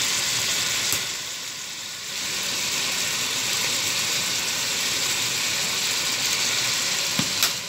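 Diced mixed vegetables sizzling steadily as they fry in a stainless steel pot, with a light click about a second in and another near the end.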